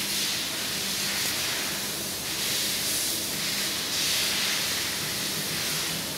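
TIG welding machine switched on and running idle: a steady airy hiss from its cooling fan, with a faint low hum underneath.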